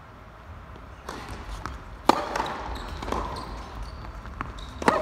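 Tennis ball being struck during a rally on an indoor court: a fainter hit about a second in, then two sharp, loud racket strikes close by, about three seconds apart, each ringing briefly in the hall.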